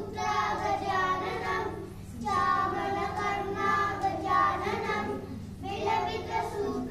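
A group of young children singing together in unison, in phrases with short pauses for breath about two seconds in and again near the end, over a steady low hum.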